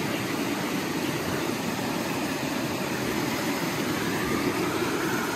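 Steady rush of flowing water, with water being swirled through a plastic gold pan during panning.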